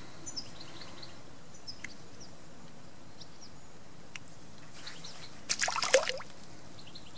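Steady outdoor background hiss with a few faint high bird chirps, and a short, louder noisy scuffle about five and a half seconds in.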